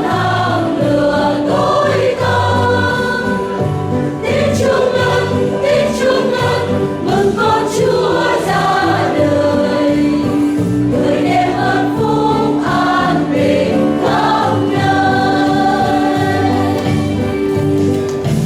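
Church choir singing a Vietnamese Advent–Christmas hymn in several voices over low sustained notes.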